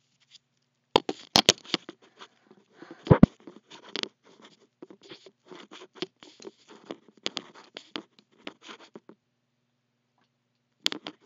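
Microphone handling noise: a run of scratches, rubs and sharp clicks, strongest in the first few seconds and dying away about nine seconds in, with one more click near the end.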